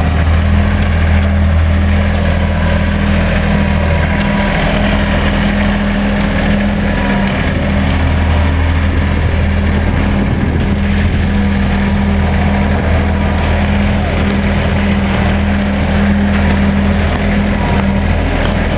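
An engine running steadily with a constant low drone that does not change in pitch.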